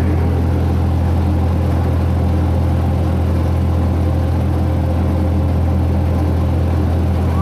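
Tour train's engine running steadily, a deep, even drone heard from an open passenger car while the train rolls along.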